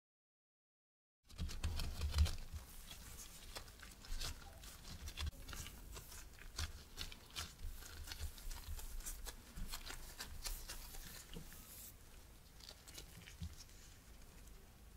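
Disposable-gloved hands rolling up a wedge of whole wheat dough: soft rustling and crinkling of the plastic gloves with many small tacky clicks from the dough, starting about a second in.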